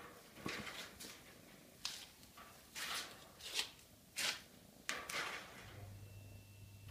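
Kitten playing and clambering in a wire pet cage: a series of short, scratchy rustles and rattles, about a dozen at uneven intervals. A low steady hum comes in near the end.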